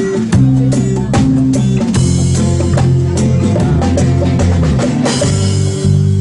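Live band playing an instrumental passage: a drum kit keeping a steady beat under held bass guitar notes and guitar.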